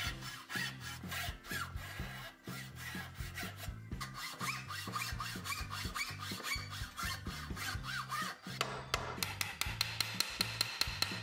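Hand saw cutting a hardwood block held in a vise, with repeated rasping back-and-forth strokes, over background music. Near the end the sawing gives way to a quick, even run of sharp taps.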